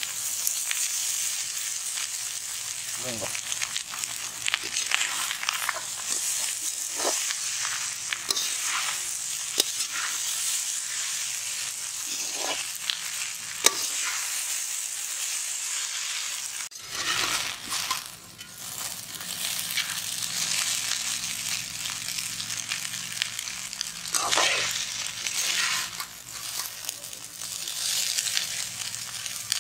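Noodles sizzling in a large black iron wok as they are tossed and stirred with a long steel ladle, the ladle scraping through the pan every second or two. The sizzle drops away briefly about seventeen seconds in, then returns.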